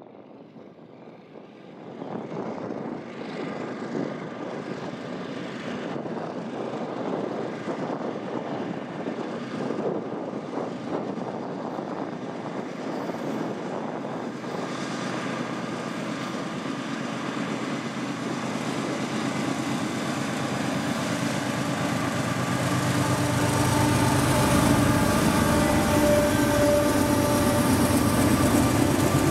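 Union Pacific freight train's diesel locomotives approaching. The sound comes up about two seconds in and grows steadily louder, and the engines' steady hum comes through more clearly over the second half.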